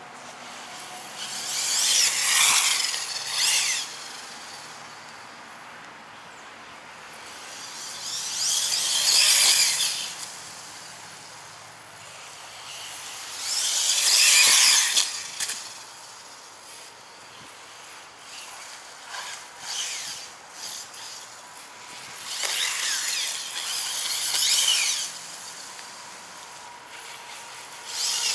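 Arrma Senton RC car's electric motor and drivetrain whining at high speed on wet grass, swelling and fading in pitch and loudness as it makes four fast passes a few seconds apart.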